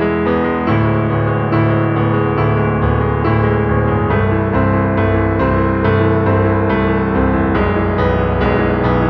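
Background music: piano or electric piano melody over a steady bass line.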